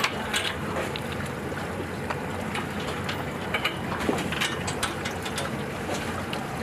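Small outboard-powered boat's engine and water noise running steadily alongside a ship's hull, with scattered sharp clicks and knocks from metal fittings and gear on deck.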